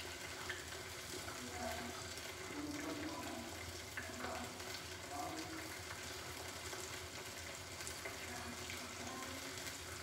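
Breaded pork strips deep-frying in hot fat on low heat, a steady sizzle with fine crackling.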